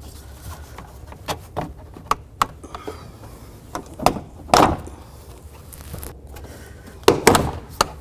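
Plastic rear quarter interior trim panel of a Dodge Caliber being worked free by hand: scattered clicks and knocks of the trim and its retaining clips, with louder knocks about halfway through and again near the end.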